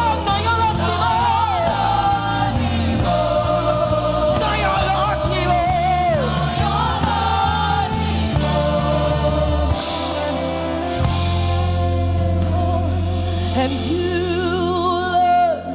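Live gospel praise-and-worship music: a group of singers with vibrato over a band with bass and drums, a long low bass note held from about ten seconds in.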